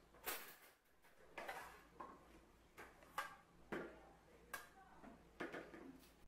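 Plates and metal cutlery clinking as a table is set: plates set down and forks and spoons laid on them, a sharp clink every half second to second, each ringing briefly.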